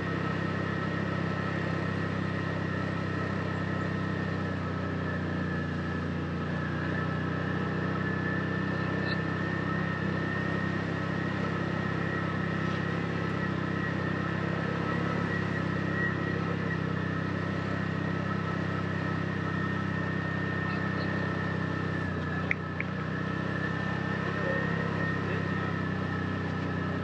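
Side-by-side UTV engine running steadily while driving a dirt trail, a low hum with a steady high-pitched whine over it. One sharp knock late on.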